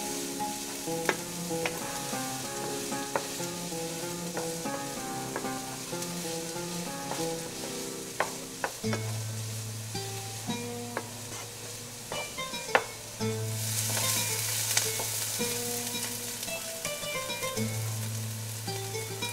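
Diced onions sizzling in oil in a non-stick frying pan while a wooden spoon stirs them, with scattered sharp knocks of the spoon against the pan. The sizzle grows louder about two thirds of the way in. A background music track with a plucked melody and low bass notes plays throughout.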